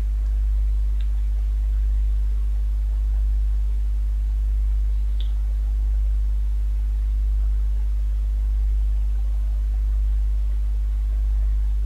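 Steady low electrical hum in the recording, with two faint clicks, about a second and about five seconds in.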